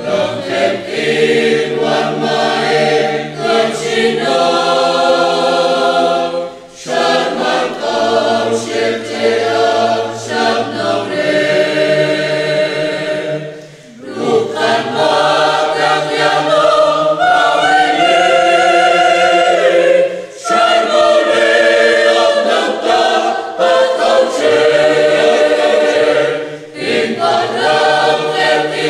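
Mixed choir of men's and women's voices singing a hymn in harmony, in long held phrases with short pauses for breath between them.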